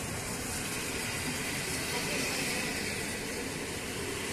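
PKP Intercity passenger coaches rolling slowly past along the platform, a steady rushing noise of wheels on rail.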